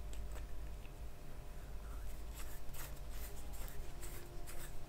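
Light clicks and scrapes of small metal parts being handled: a threaded spacer and a length of threaded rod being fitted together by hand, the clicks coming more often in the second half.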